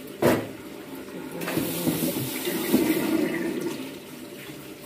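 Tap water running and splashing into a large metal wok as a hand swirls and sloshes it around to rinse it, with a brief sharp knock about a quarter second in.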